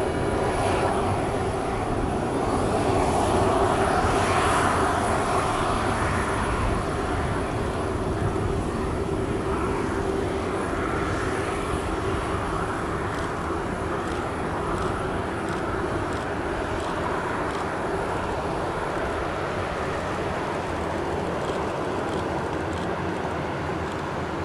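Jet engines of a Boeing 737-400 (CFM56-3 turbofans) running steadily, swelling to their loudest a few seconds in and then slowly fading.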